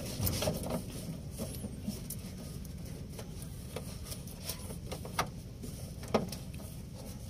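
Light metallic clicks and scrapes of a wrench working the terminal nut of a truck's battery relay as the main power cable is fastened, a few sharper clicks about five and six seconds in, over a steady low hum.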